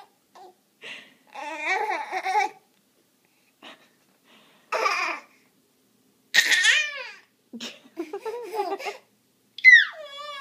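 Six-month-old baby babbling and laughing in short bursts, with high squeals that slide down in pitch, one near the end.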